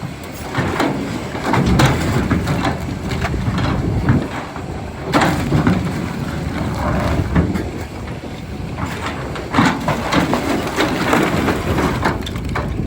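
Doosan DX390 excavator working rock: irregular knocks, scraping and clatter of stone on the steel bucket over the steady drone of its diesel engine.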